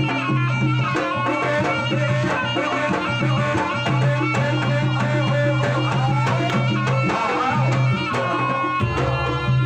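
Jaranan gamelan music played live: kendang hand drums beating quickly over ringing gongs and bronze pot-gongs.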